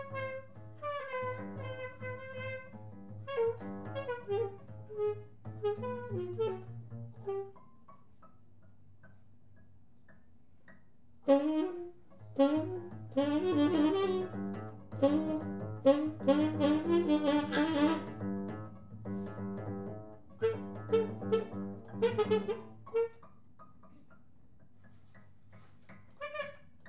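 Tenor saxophone and double bass playing together live, the sax lines running over a steady low bass note. The playing drops to a lull about 8 s in, comes back loud and busy about 11 s in, and falls away again shortly before resuming at the end.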